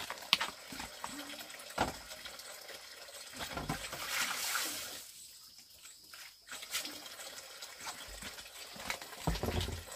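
Water running from a spout onto bamboo slats and splashing as a plastic basin is rinsed under it, with a few sharp knocks of the basin and a heavier thump near the end.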